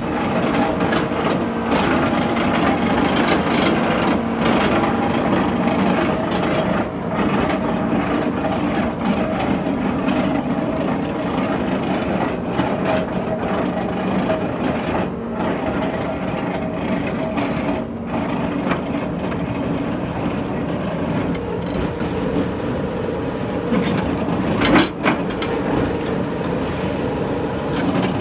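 Piling machine running steadily, with a continuous mechanical clatter and a couple of sharper knocks near the end.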